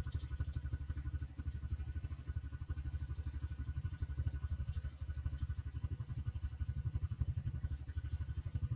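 A small engine idling close by: a low, rapid, even throb with a faint steady whine above it.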